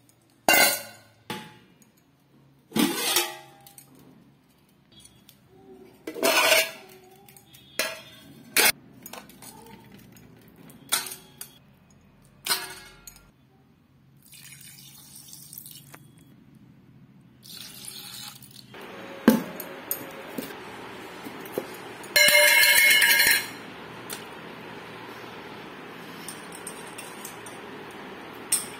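Stainless-steel bowl clinking and knocking on a tiled floor in a series of sharp metallic clinks. In the second half there is a faint steady hiss, and a loud steady tone a little over a second long comes through about two-thirds of the way in.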